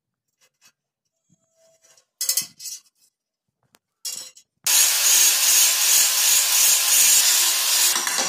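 A ceramic wall tile being cut along a marked line: a loud, harsh, continuous scraping that starts abruptly about four and a half seconds in and lasts about three seconds, after a couple of short scrapes.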